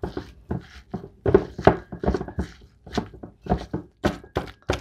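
Wooden pestle pounding shredded green papaya and tomatoes in a metal bowl: a quick, uneven run of dull knocks, about three or four a second, as the salad is bruised and mixed with its lime, sugar and fish-sauce dressing.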